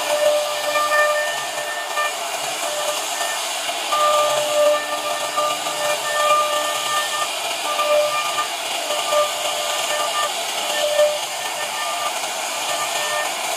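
CNC router spindle running with its carving bit cutting into a wooden board: a loud, steady hissing whine, with a pitched tone that swells and fades every second or so as the cutter bites into the wood.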